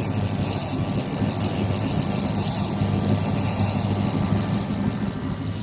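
Jet boat's inboard engine idling with a steady low hum.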